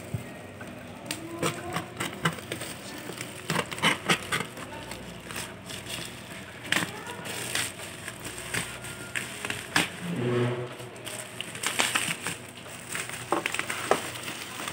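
Black plastic courier mailer crinkling and crackling as it is cut open with scissors and pulled apart, with many irregular sharp clicks.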